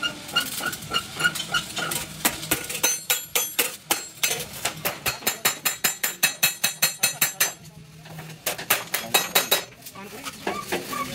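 Metal tools striking a steel Hino truck cab door hinge: rapid ringing clinks, about three a second, with a short pause about three-quarters of the way through.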